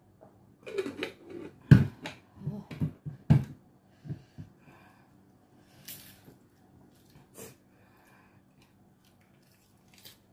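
A person gulping water from a large plastic bottle, a quick run of swallows with the water sloshing and clicking in the bottle, while easing the burn of very hot chilies. After that come a few mouth clicks and a sharp hissing breath about six seconds in.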